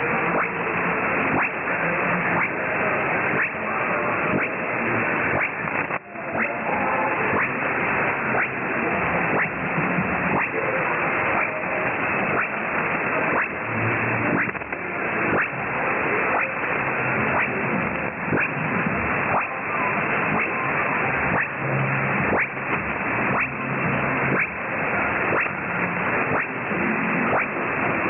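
Weak shortwave broadcast on 4810 kHz heard through a Perseus SDR receiver in lower sideband with a narrow 2.6 kHz filter: mostly hiss and crackling static, with faint programme audio barely showing through. The signal fades briefly about six seconds in.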